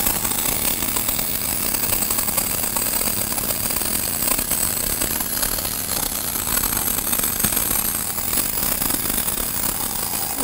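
Miller RMD short-circuit MIG arc welding the downhill root pass on P91 chrome pipe, a steady, even crackle that runs without a break.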